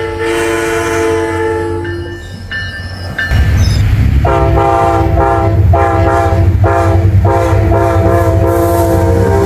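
Train horns: a held two-note horn that stops about two seconds in, then an approaching Amtrak diesel locomotive's multi-note air horn sounding several blasts over the heavy rumble of the train, the last blast long.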